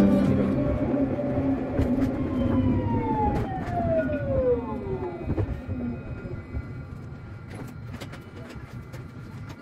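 Electric tram running on rails: low rumble with scattered clicks, and a whine from the drive that falls steadily in pitch as the tram slows. The whole sound gets quieter toward the end.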